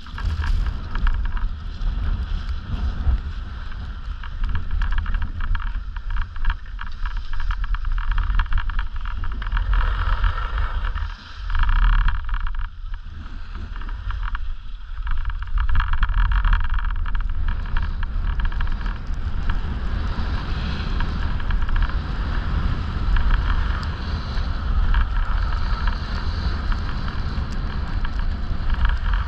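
Wind buffeting the microphone of a skier's camera while skiing downhill, with the skis hissing and scraping over groomed snow; the rush dips briefly about eleven seconds in.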